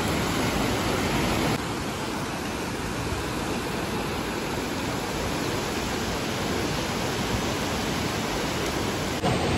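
Swollen, silt-laden mountain river in spate: a steady rush of fast-flowing water, a little quieter from about a second and a half in.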